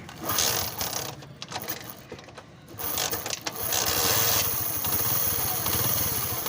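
Small single-cylinder Honda motorcycle engine being kick-started, with clattering of the kick mechanism for the first few seconds, then catching about three seconds in and settling into a steady idle. It runs with its timing chain freshly tightened, and the mechanic judges it free of the earlier chain noise.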